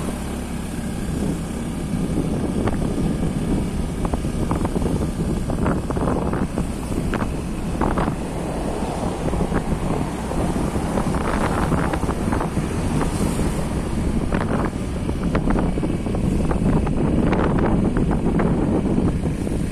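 Wind buffeting the microphone over the low rumble of a slowly moving vehicle, with irregular gusty flutters throughout.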